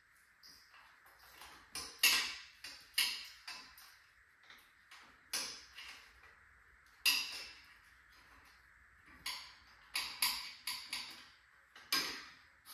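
Irregular sharp metallic clinks and clanks, roughly one a second with a few quick clusters, from hand tools and metal parts being handled while a hive lift is taken apart.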